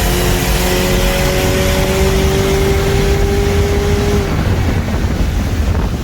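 Car engine pulling hard at full throttle through one gear, its tone rising slowly, over heavy wind and road noise. The engine tone drops out about four seconds in as the car lifts off.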